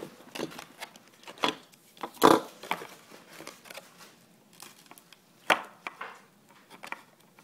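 Clear plastic blister packaging being handled and pulled apart by hand: crinkling and crackling with sharp clicks and snaps, the loudest about two seconds in and another about five and a half seconds in.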